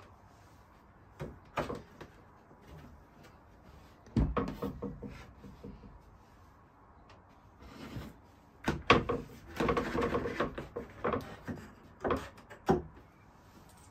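Plywood panels of a folding board knocking and rubbing as they are pushed together and latched with a wooden block latch, in several bursts of clunks and scrapes.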